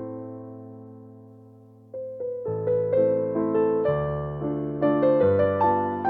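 Soft piano music: a held chord fades away, then about two seconds in new notes begin, played louder and in quicker succession from about two and a half seconds on.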